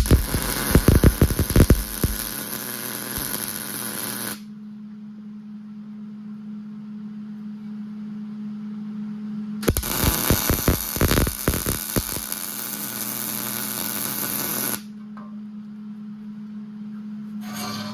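Electric arc welding nuts onto a steel hitch tongue: two passes of crackling, hissing arc, about four and five seconds long, over a steady low hum.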